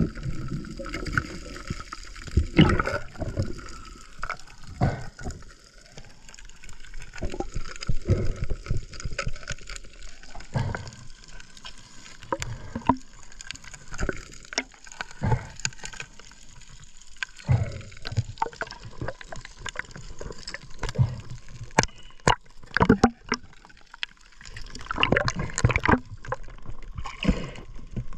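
Underwater sound from a camera in the water: irregular knocks, scrapes and gurgling bubbles as hands grapple an octopus against reef rock, over a faint steady whine.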